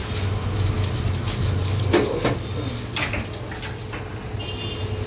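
Large-batch biryani cooking: a steady low hum under a few sharp metal clanks and knocks of cookware, the loudest about two seconds in and more just after and about three seconds in.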